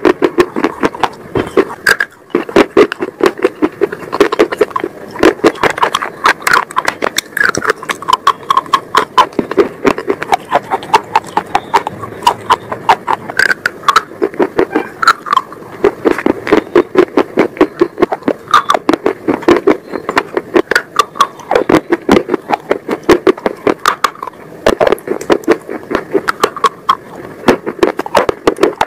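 A person biting and chewing hard, brittle brown sticks close to an earphone microphone: a dense run of sharp crunches and cracks, several a second.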